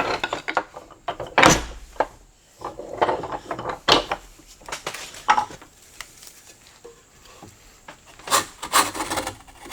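Stanley 220 block plane pushed across the end grain of a board in several short, irregular strokes, each a scraping, rasping pass of the blade on the wood. The blade is ground to 30 degrees and takes end grain only with difficulty.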